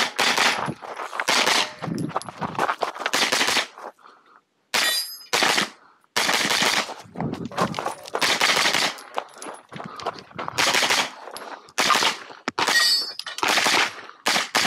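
Pistol-calibre carbine fired in quick strings of shots during a timed stage run, with a break of just under a second about four seconds in while the shooter moves to the next position.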